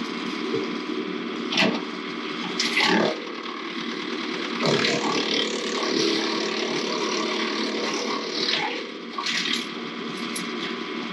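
Woodland Mills WC68 6-inch PTO wood chipper, driven by a Ford 1920 tractor, running steadily while branches are fed in and chipped. There are sharp cracking bursts about a second and a half and three seconds in, a longer spell of chipping from about five to eight and a half seconds, and another short burst near the end.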